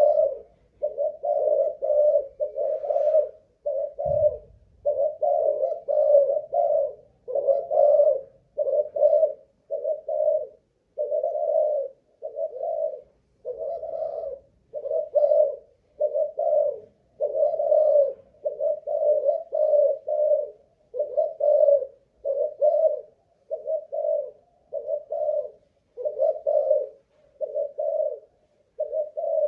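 Spotted dove (Malaysian cu gáy strain) cooing on and on: short, low coo notes about one a second, phrase after phrase without a pause. This is the staying power in song that keepers test for. A brief low thump sounds about four seconds in.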